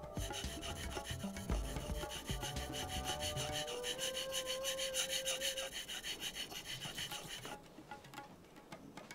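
Leather-cutting knife (kawatachi) being sharpened on a Maruoyama natural whetstone: quick, even rubbing strokes of steel on stone, stopping about a second and a half before the end, over light background music.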